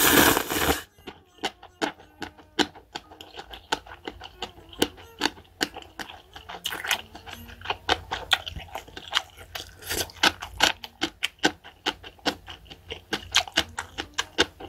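A person slurps instant cup ramen noodles loudly in the first second, then chews close to the microphone with many quick wet clicks and smacks.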